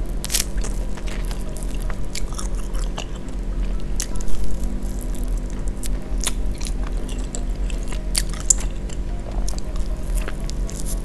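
Close-up eating sounds of a Richeese Factory fire wing, a fried chicken wing in spicy sauce, being bitten and chewed. Irregular sharp clicks of biting and chewing run through it, with wet mouth sounds.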